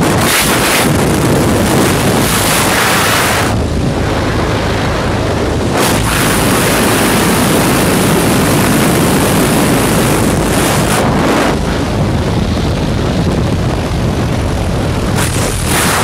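Loud wind rushing through the open door of a small high-wing propeller plane at jump altitude, buffeting the microphone, over the steady drone of the plane's engine. The rush eases briefly a few times.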